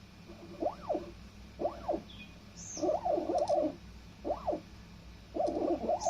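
Stepper motors of a DIY Arduino writing/engraving machine whining through short moves. The pitch of each stroke rises and falls as the motors speed up and slow down, mixed with brief stretches of steadier, buzzier whine.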